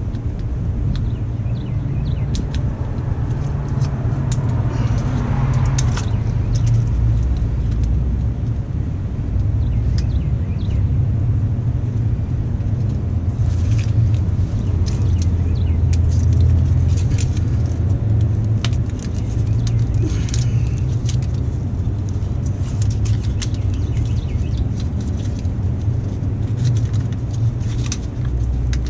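A steady low rumble with scattered light clicks and rustles of hands handling cables and tape.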